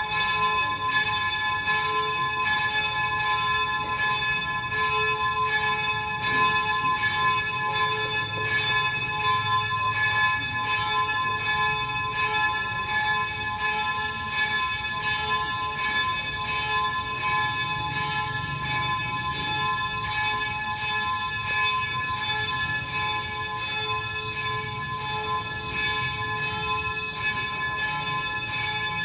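Church bells ringing on without a break, several tones sounding together and overlapping, over a low background rumble.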